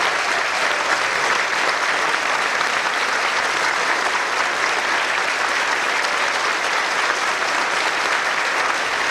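Audience applauding steadily in a theatre, a dense even clapping with no music.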